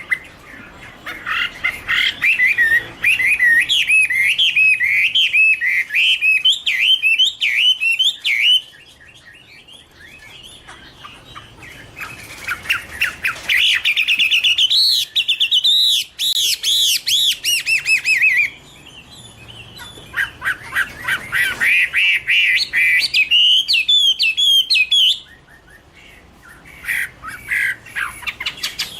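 Chinese hwamei (Garrulax canorus) singing: long, loud phrases of rapid, looping repeated notes, with pauses of a few seconds between phrases and a new phrase starting near the end.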